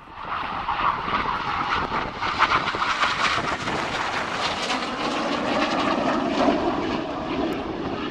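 BAE Hawk T1 jet trainer's Adour turbofan roaring as the jet passes, the roar swelling at the start and its pitch falling steadily over the last few seconds as it goes by.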